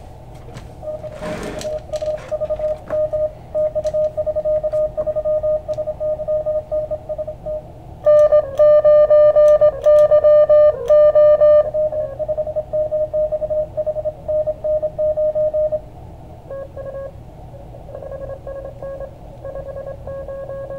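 Morse code (CW) from an Elecraft KX2 transceiver's speaker: one pitched beep keyed on and off in dots and dashes over steady band hiss. A much louder, sharper stretch of keying comes from about eight to twelve seconds in, and the code is fainter near the end.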